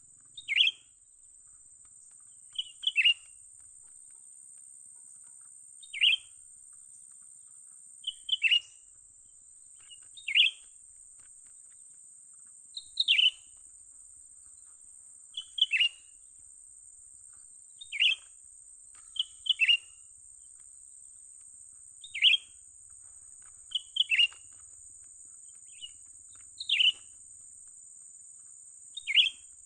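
Cucak ranting bird calls: short, sharp, falling chirps repeated every two to three seconds, some given in quick pairs, as used to lure the birds. A steady high-pitched insect drone runs underneath.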